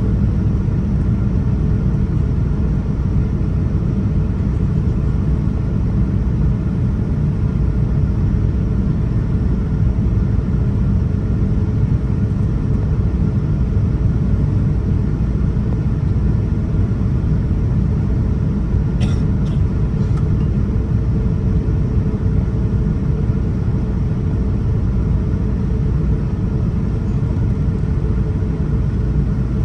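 Steady cabin noise inside a Boeing 787-9 airliner: a loud, even low rumble of engines and airflow with a faint steady hum. Two faint short ticks come about two-thirds of the way through.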